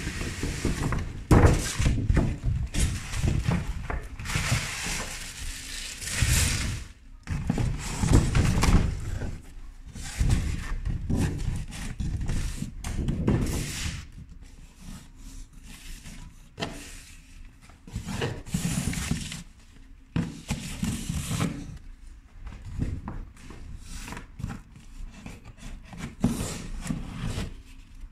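Packaging being handled and opened by hand: rustling paper and bag, with soft thunks of a box, in irregular bursts.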